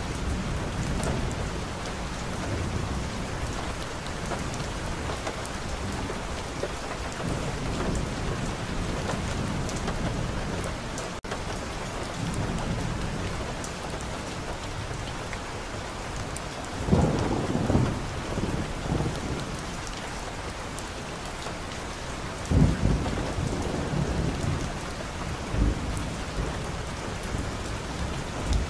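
Steady rain falling on a car's windshield, with thunder rumbling low underneath. Sharper, louder thunderclaps come a little past halfway and twice more near the end.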